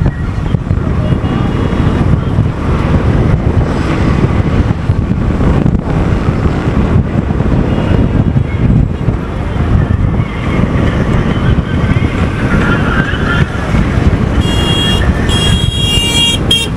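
Wind buffeting the microphone over the rumble of road traffic. A vehicle horn toots a few times near the end.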